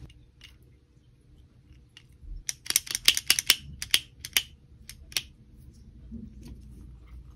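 Hard plastic toy parts clicking and tapping as the figure and its gold crown piece are handled. A quick run of sharp clicks starts about two and a half seconds in and lasts around three seconds, followed by a few faint scattered ticks.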